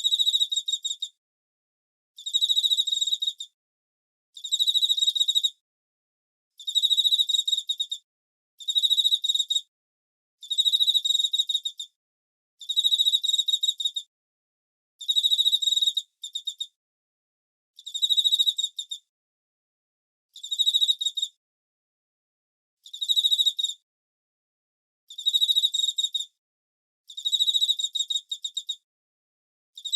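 Cricket chirping: trills of rapid pulses on one high pitch, each about a second long, repeating roughly every two seconds with dead silence between them.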